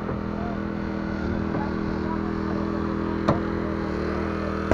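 Small petrol engine of a portable hydraulic rescue-tool power unit running steadily, with a sharp snap about three seconds in and another near the end as the rescue tool works on the car.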